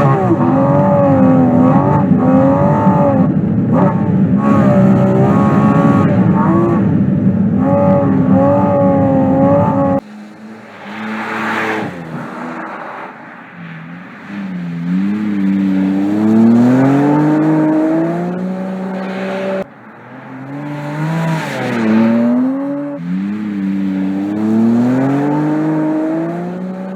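Porsche 718 Cayman GT4 RS's naturally aspirated 4.0-litre flat-six revving hard while the car drifts. It is loud and close with a wavering pitch for the first ten seconds, then after an abrupt change it is quieter, with the pitch repeatedly climbing and dropping sharply.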